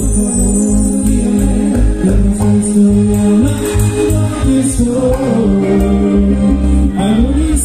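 Live cumbia band playing: a singer over a pulsing bass beat, keyboard and percussion.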